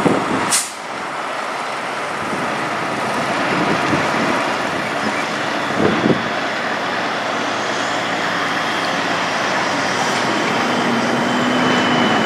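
Diesel engine of a Kenworth semi truck running steadily as the tractor-trailer rolls slowly past, with a short air-brake hiss about half a second in.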